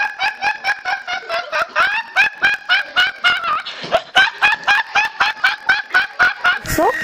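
A teenage boy laughing hysterically in rapid, high-pitched honking bursts, about four or five a second, with a brief catch of breath about four seconds in before the laughter resumes.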